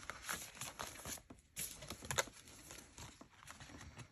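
Paper banknotes and frosted plastic cash envelopes rustling and crinkling as they are handled, with small irregular clicks and one sharper click about two seconds in.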